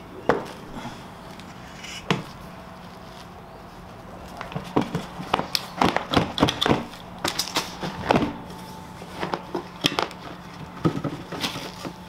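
Irregular knocks and clatters of an upturned steel bucket being handled on a plywood board as the crucible and aircrete furnace lining slide out of it, with crumbs falling. A faint steady low hum runs underneath.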